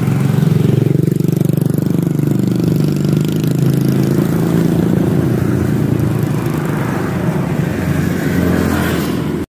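An engine running steadily, a low hum with a slightly wavering pitch, which stops abruptly at the very end.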